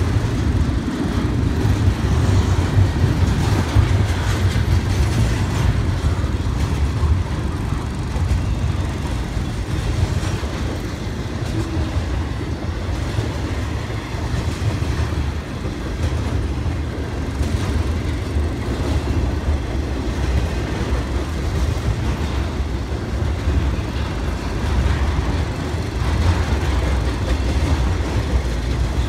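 Cars of a BNSF intermodal freight train, loaded with double-stack containers and highway trailers, rolling past: a steady rumble of steel wheels on the rails.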